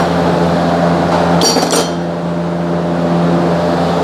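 A single ringing metal clink of a hand wrench on a brake caliper bolt about a second and a half in, over a steady low hum.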